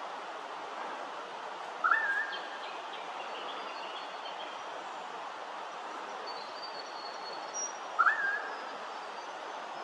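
Two loud calls from a wild animal, each a short upward slide into a held whistle-like note, about six seconds apart, over a steady outdoor hiss. Fainter, higher bird calls come between them.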